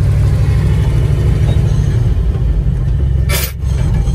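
1971 GMC dump truck driving, heard from inside the cab: a steady low engine and road rumble. About three seconds in comes a brief burst of noise, and the engine note dips just after it.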